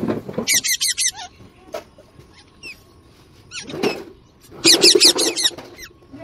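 A parrot chattering and squawking in two rapid bursts, one about half a second in and another near the end, each a quick run of short sliding calls.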